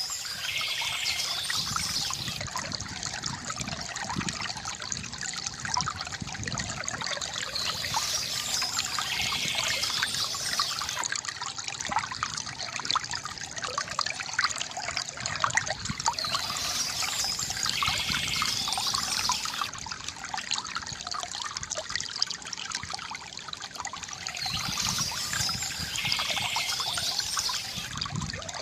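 Water trickling and splashing steadily from a bamboo fountain. A brighter, higher sound returns about every eight seconds over the water.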